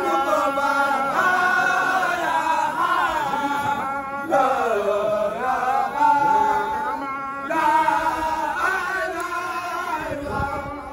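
Men chanting a Baye Fall devotional song into a handheld microphone, the lead voice holding long, wavering melodic lines. The chant breaks off briefly about four seconds in and again about seven seconds in, then resumes.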